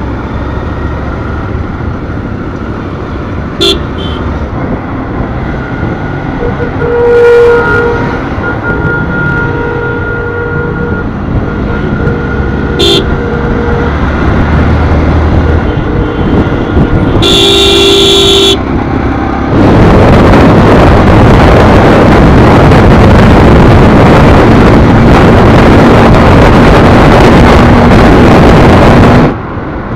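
Motorcycle riding through city traffic with vehicle horns honking, including one long horn blast about halfway through. From about two-thirds in, a loud, steady rush of wind on the microphone covers everything, with the engine faintly climbing in pitch as the bike speeds up on open road, cutting off suddenly near the end.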